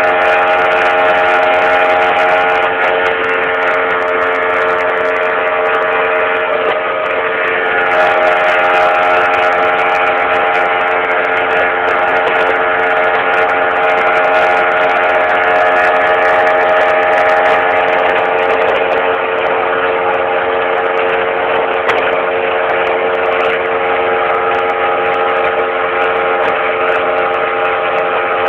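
Boat motor running steadily under way, a loud, even drone with several held tones that shift slightly a few seconds in.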